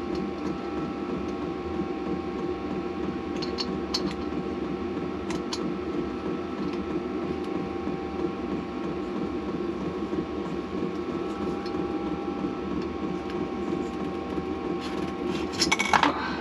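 Light metallic clicks and, near the end, a louder metal clatter as the Triumph T90 engine's cylinder barrels are worked up off the pistons, over a steady background hum.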